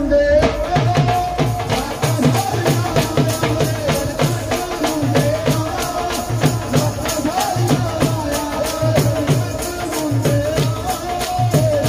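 Live Punjabi folk music: a man sings a wavering melody into a microphone over a steady dhol beat, with a dense jingling, clacking percussion rhythm on top.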